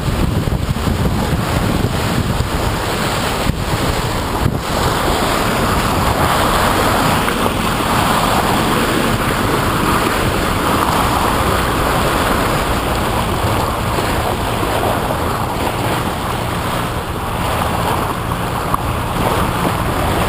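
Wind buffeting the microphone and water rushing and churning along the hull of a fast-moving boat, over the steady drone of its engine.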